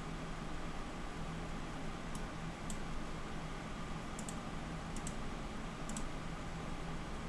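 A handful of faint, sharp mouse clicks, some in quick pairs, over the steady low hum of running computer equipment.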